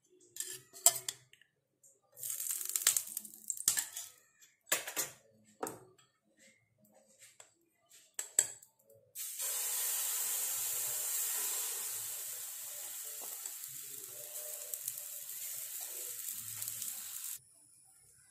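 Maida-and-egg dosa batter sizzling steadily on a hot non-stick pan as it is poured and spread, starting about halfway through and cutting off suddenly near the end. Before it come scattered sharp clinks and knocks, the loudest about a second in.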